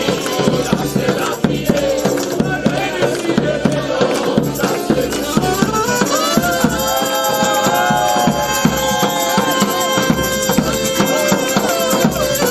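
Accordion playing music, with a group of people clapping along in time to the beat. From about six seconds in, the accordion holds long steady notes over the clapping.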